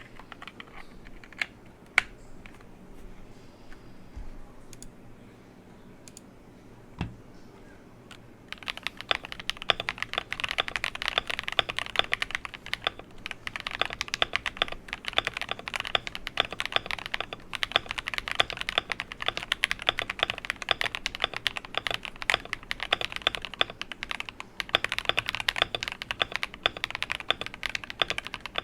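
Typing on an Akko 5075S mechanical keyboard with Akko Snow Blue Grey 43-gram linear switches and a tape mod. A few scattered clicks come first, then about eight seconds in it breaks into steady, fast typing that carries on throughout.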